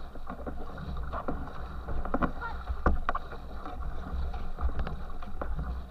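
Racing canoe under hard paddling: repeated paddle splashes and spray hitting the stern, over water rushing under the hull and a steady low rumble.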